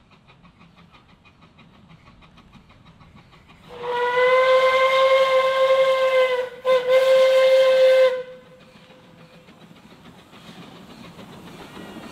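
Puffing Billy narrow-gauge steam locomotive's whistle blown in two blasts, a long one of about three seconds and then a shorter one of about one and a half seconds, at a steady single pitch. Faint rapid rhythmic beating is heard before the whistle starts.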